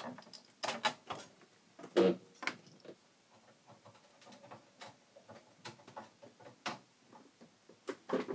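Irregular small clicks, taps and knocks of a tool and hands working at a computer motherboard as a socketed ROM chip is pried out, with one louder knock about two seconds in.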